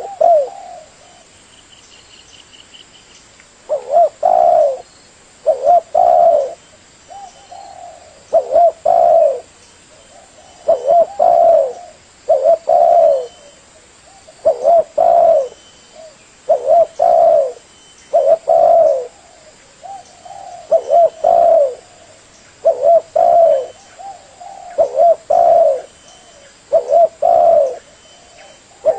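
Spotted dove cooing: after a quiet first few seconds, low, mellow call notes repeat roughly every one to two seconds.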